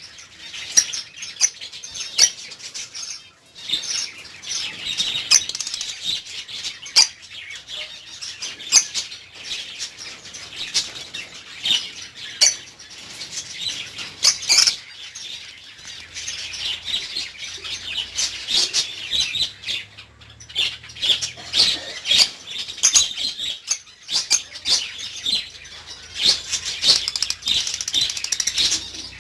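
A group of lovebirds chirping continuously, many short, sharp, high calls overlapping one another.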